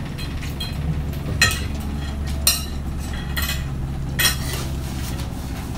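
Metal spoons and forks clinking and scraping against dinner plates as two people eat, with several sharp clinks spaced about a second apart. A steady low hum runs underneath.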